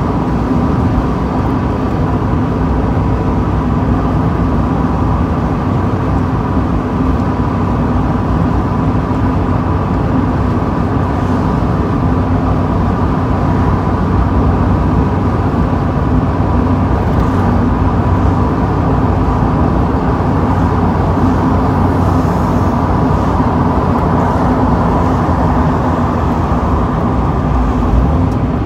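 Mazda Miata driving steadily with the top down: constant wind and road noise, with the four-cylinder engine's even drone beneath it.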